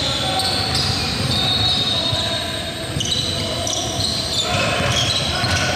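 Basketball game play: sneakers squeaking on the gym floor in many short high squeals, with a basketball bouncing.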